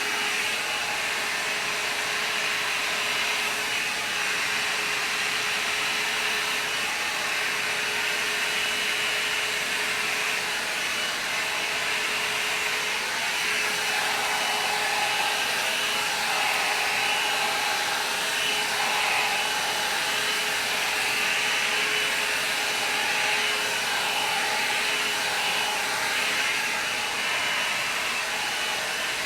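INGLAM hot-air brush hair dryer running steadily on its high setting, an even rushing of air with a steady motor hum. The airflow sound shifts a little as the brush is worked through the hair.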